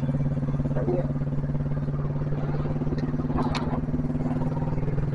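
Royal Enfield Bullet's single-cylinder engine running steadily as the motorcycle cruises at an even speed, with an even, rapid firing pulse and wind and road noise.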